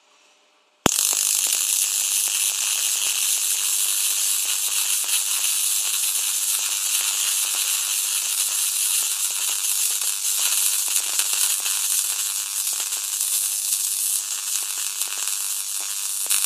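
High-voltage arc from an X-ray transformer crackling and hissing between two sparklers wired up as Jacob's ladder electrodes. It switches on abruptly about a second in and runs steadily, a dense high-pitched crackle.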